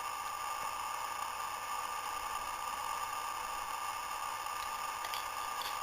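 Steady static-like hiss with no distinct event in it.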